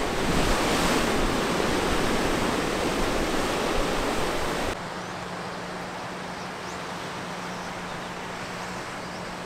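Steady rush of surf, cutting sharply about five seconds in to a quieter steady hiss with a faint low hum.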